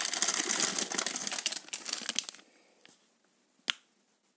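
Clear plastic bags around model-kit sprues crinkling as they are handled, dying away about two and a half seconds in. A single sharp click near the end.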